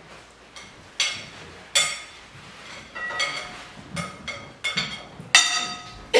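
A spoon scraping and knocking against glass bowls while a blended oat mixture is emptied from one into another: a string of sharp clinks, each with a short ring, about one a second.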